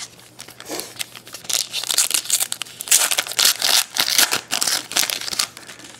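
Foil wrapper of a 2011 Panini Prestige football card pack being torn open and crinkled by hand. The crackling starts about a second and a half in and dies away near the end.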